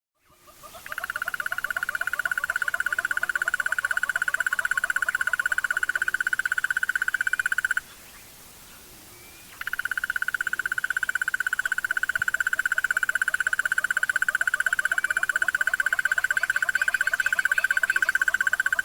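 Crested barbet trilling: a long, fast, even rattle held for about seven seconds, then, after a pause of about two seconds, held again for about nine seconds. A lower series of quick repeated notes runs beneath the trill.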